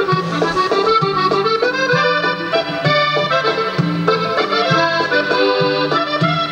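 Instrumental accordion music with sustained melody notes over a steady bass line that changes note about once a second.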